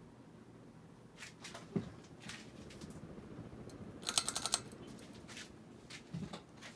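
Scattered light clicks and knocks over a faint steady hum, with a quick rattle of about seven clicks in half a second midway.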